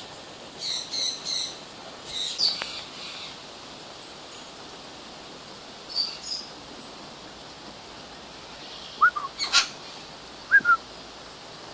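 Captive birds calling in an aviary: short bursts of high chirps in the first three seconds and again around six seconds, then a quick run of short rising calls with one sharp click near the end, over a steady hiss.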